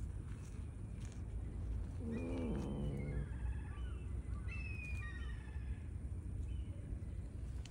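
Wild birds calling: a lower call with a falling pitch about two seconds in, then several high, chirping phrases until about five and a half seconds in, over a steady low rumble.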